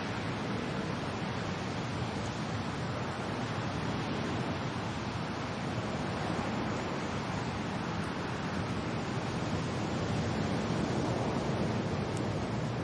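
Steady wind and rain, an even rushing noise with wind buffeting the microphone, swelling slightly near the end.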